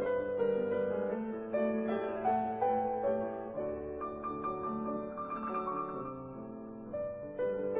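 Background music: soft piano playing a slow melody.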